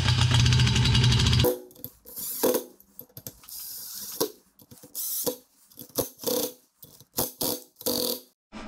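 Cordless power driver running the bolts of a motorcycle's front brake disc into the wheel hub: one long run for about the first second and a half, then a string of short trigger bursts as each bolt is snugged down.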